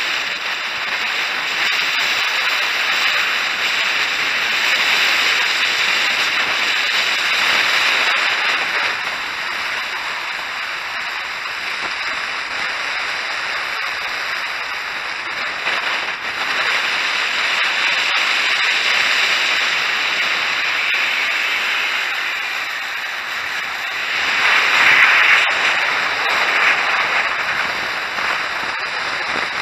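Wind rushing past a ship's open deck with the hiss of a rough, whitecapped sea, a steady rush that swells and eases in gusts several times.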